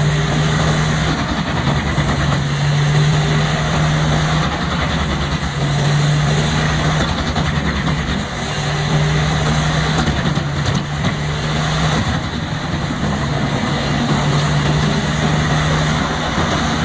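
Pezzolato PTH 1400/1000 industrial drum wood chipper running under load, its diesel engine droning over a dense, even grinding noise as logs are shredded. The deep engine tone swells and eases every few seconds as the load changes.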